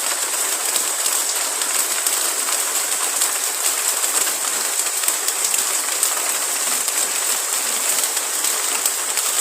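Steady rain falling: an even hiss dotted with countless small drop ticks, unchanging throughout.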